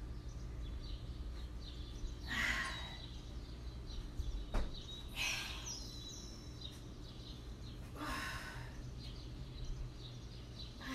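A woman's forceful breaths out, one short breathy puff roughly every three seconds, the exertion breathing of repeated leg lifts. A steady low hum runs underneath, and a single sharp click comes about four and a half seconds in.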